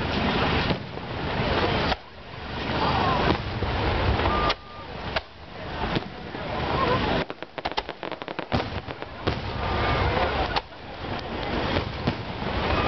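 Aerial fireworks shells going up and bursting: a series of booms over a steady noisy background, with a run of rapid crackling about halfway through.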